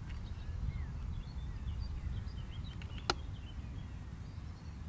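Wind rumbling on the microphone with small birds chirping faintly, and a single sharp click about three seconds in.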